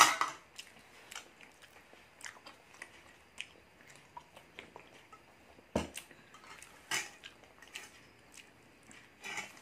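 Close-up chewing and mouth sounds of people eating mango sticky rice, with many small clicks and a few louder knocks, one right at the start and one just before the halfway mark.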